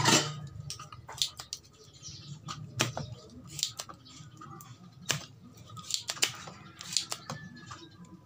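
Irregular light clicks and taps, about a dozen, as a soldering iron works the pins of an amplifier circuit board to desolder its power transistors; the sharpest click comes right at the start. A low hum fades out in the first second or so.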